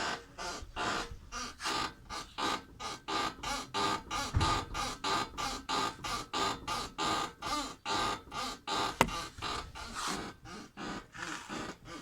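Hyundai i10's front suspension creaking as the steering wheel is turned, a regular run of short creaks, about three or four a second.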